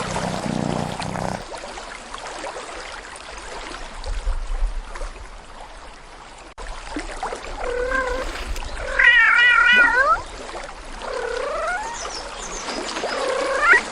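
A cat meowing several times, the loudest a long wavering meow about nine seconds in, over a soft steady hiss in the first half.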